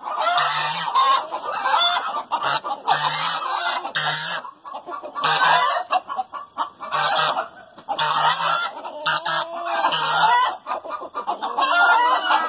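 Araucana hens cackling loudly and repeatedly, the egg song that hens give around laying, in calls that recur about once a second.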